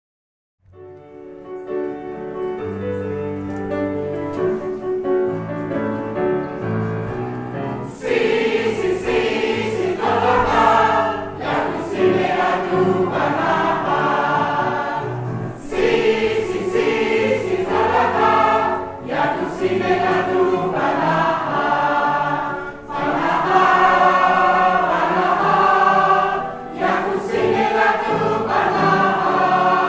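Amateur mixed choir of women and men singing a song together. A quieter opening with held low notes gives way to the full choir coming in loudly about eight seconds in, singing in phrases with short breaks between them.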